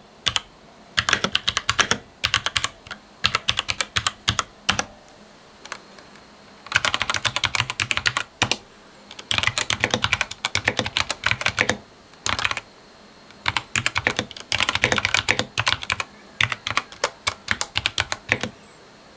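Typing on a mechanical keyboard with red linear switches: rapid runs of keystrokes in bursts of a second or two, with short pauses between them.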